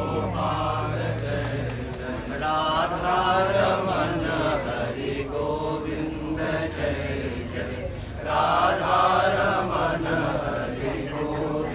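A group of voices chanting a Hindu devotional chant together, swelling louder twice.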